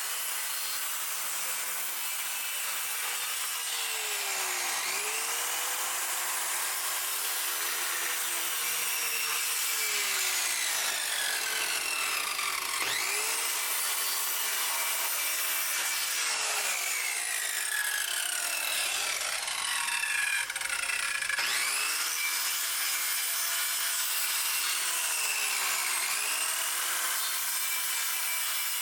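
Electric power saw running continuously as it cuts through pallet wood. Its motor pitch dips under load every few seconds and then recovers.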